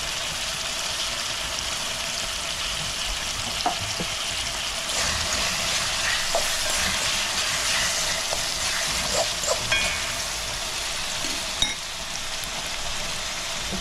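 Red herring with onion and sweet peppers sizzling in a frying pan, getting louder about five seconds in, while a spoon stirring the pan makes scattered clicks and scrapes.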